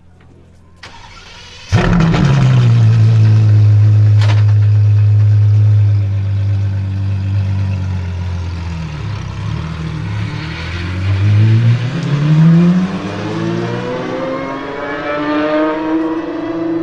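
Apollo Intensa Emozione's 6.3-litre naturally aspirated V12 fires up about two seconds in and runs at a steady, loud idle, with one sharp crack a couple of seconds later. After that the revs climb twice, dropping briefly between the two climbs as the car pulls away and accelerates.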